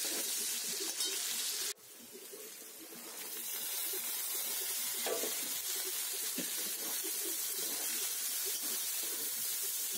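Onions sizzling in hot oil in a pan while a metal spatula stirs them. About two seconds in the sound cuts off abruptly, then builds back up as carrots, peas and capsicum fry and are stirred.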